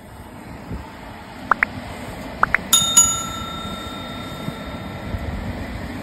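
Subscribe-button animation sound effect: two pairs of quick rising click pops, then a notification bell struck twice that rings on for about two and a half seconds, over a steady outdoor rumble and wind.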